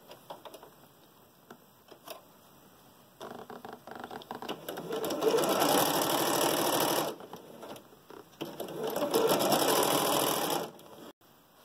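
Electric sewing machine stitching a seam through two layers of fabric in two runs of about two seconds each, the first building up to speed, with a short pause between; light fabric handling before the stitching starts.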